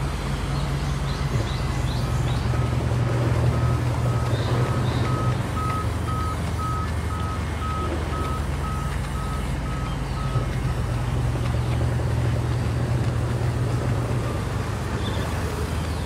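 Sawmill band-saw machine running with a steady low hum as planks are fed through. A reversing beeper sounds about twice a second from about two seconds in until past the middle.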